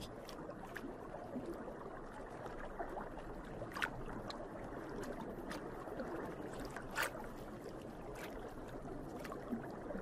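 Steady, muffled underwater water ambience, with a few faint clicks, the clearest about four and seven seconds in.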